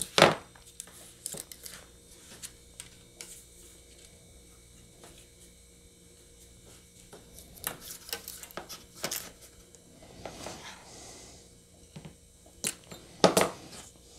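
Scattered light clicks and taps of hand tools and magnet wire being handled on a cutting mat, with a sharper click just at the start and a few more in the middle and near the end.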